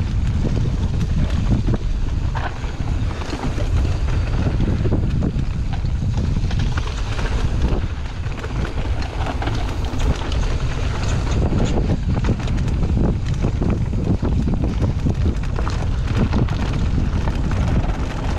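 Mountain bike descending a rough dirt and rock trail, with wind buffeting the camera microphone in a steady low rumble. Tyre noise and constant rattling clicks from the bike run through it.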